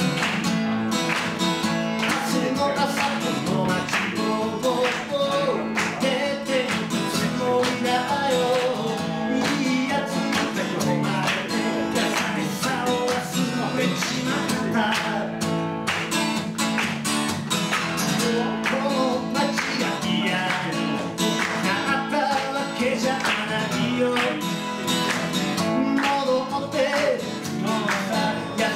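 Acoustic guitar strummed steadily in a live solo performance.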